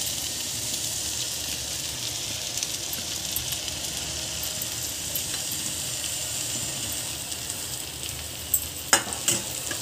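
Oil sizzling steadily under an onion, chilli and tomato tempering in a kadhai on the gas, as soaked poha is tipped in on top. A few sharp taps come near the end.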